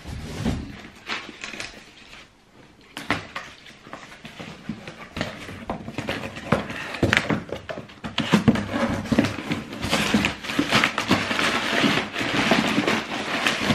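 Box cutter blade scraping and slicing through a cardboard box, with the crinkle and knocks of the cardboard being handled; sparse at first, then busier and louder through the second half.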